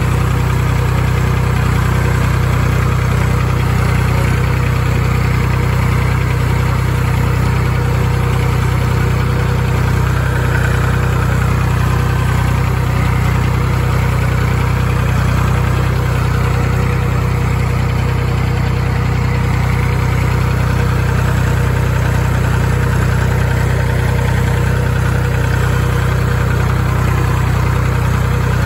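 Massey Ferguson 251XE tractor's three-cylinder diesel engine running at a steady speed as the tractor drives along, heard close up from the seat.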